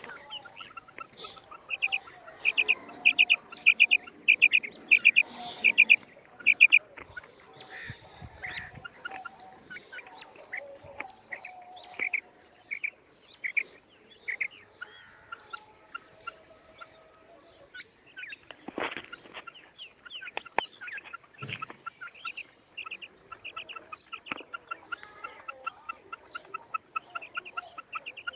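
Female quail calling: runs of short, sharp, high notes at about three a second, loudest a few seconds in and coming again in fainter runs later. A brief rustling noise breaks in a little past the middle.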